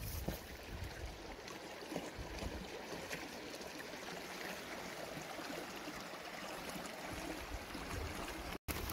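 Steady wash of water running in a small stream, cutting out for a moment near the end.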